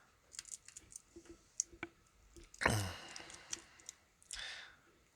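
Light metallic clicks and ticks of a half-ball pick being raked and wiggled in the pin stack of a beer tap lock, with tension wrench applied. About halfway through, a short voice sound falling steeply in pitch stands out as the loudest sound, and a soft breath follows near the end.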